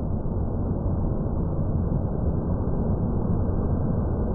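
Thunderstorm field recording slowed to a tenth of its speed, heard as a deep, steady noise with no clear individual events.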